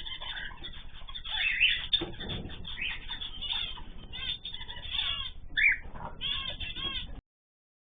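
Ornamental cage birds chirping and calling together, many short rapid calls overlapping, with a few louder calls standing out. The sound cuts off abruptly about seven seconds in.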